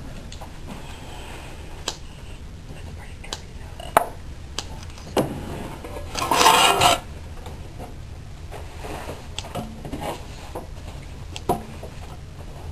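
Kitchen handling sounds: scattered clicks and knocks of utensils and dishes, with one louder rasping noise lasting under a second about six and a half seconds in, over a steady low hum.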